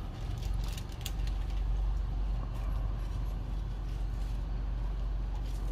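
Steady low rumble with a few faint crinkles of tissue paper as a kite's paper covering is handled and stretched.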